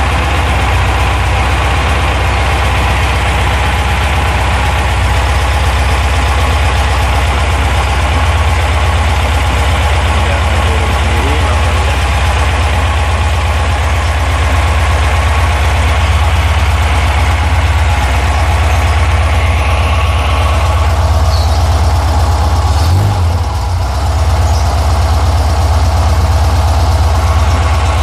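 VW Safari (Type 181 Thing) 1600 cc air-cooled flat-four engine idling steadily while it warms up.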